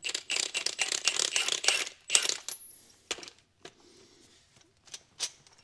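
Metal parts of a suspension bushing-removal tool clinking and rattling together as they are handled: a quick run of light clinks for about two seconds, then a few scattered clicks.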